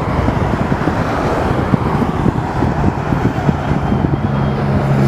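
Airbus A319 jet engine roar from the departing airliner, with wind gusting on the microphone. A steady low engine hum joins about three and a half seconds in.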